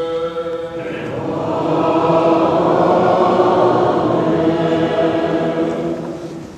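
Byzantine liturgical chant: a single voice's line gives way about a second in to the congregation singing together, unaccompanied. The singing swells, then eases off near the end.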